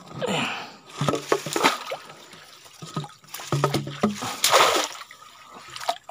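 Water sloshing and splashing in several bursts as a wire-mesh fish trap is pushed down and settled into a shallow stream, the loudest about half a second, a second and four and a half seconds in.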